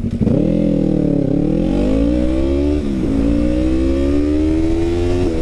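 Yamaha MT-03's 321 cc parallel-twin engine through a full free-flow aftermarket exhaust, accelerating away from a stop. The revs climb, then dip at upshifts about a second in, about three seconds in and near the end.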